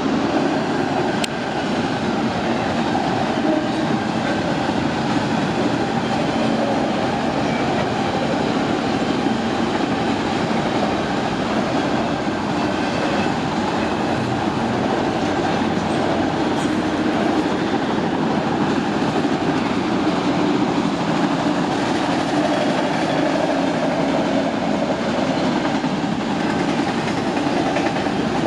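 A train rolling past on the tracks: a steady, loud noise of wheels on rail that holds unchanged throughout.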